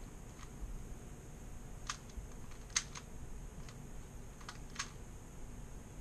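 3x3 Rubik's cube being turned by hand: a scattering of light, irregular plastic clicks as the layers snap round, loudest about three seconds in.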